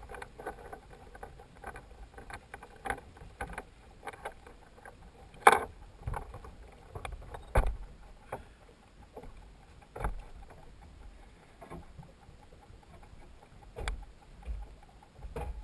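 Cabin cruiser underway, heard from a GoPro mounted on its flybridge: a low rumble with a faint steady hum, broken by irregular sharp knocks and thumps, the loudest about five and a half seconds in.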